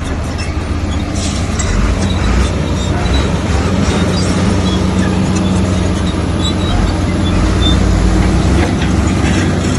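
Komatsu crawler bulldozer's diesel engine running steadily under load, with short high metallic clicks scattered through it.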